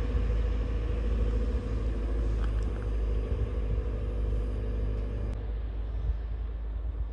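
Bimodal regional train pulling away on its diesel engines: a steady deep rumble with an engine drone that fades out about five seconds in.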